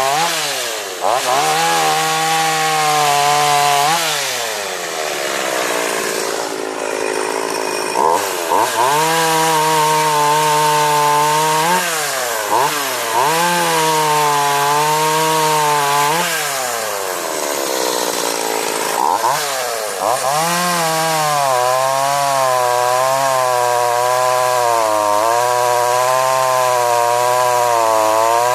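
Husqvarna 444 two-stroke chainsaw engine running at high revs. Its pitch drops and climbs back up several times, every three to four seconds. Over the last several seconds it runs with a steadily wavering pitch.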